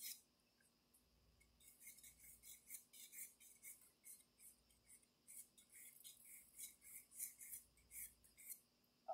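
Pastel pencil scratching faintly on dark pastel paper in short, quick shading strokes, about three a second, starting about a second and a half in.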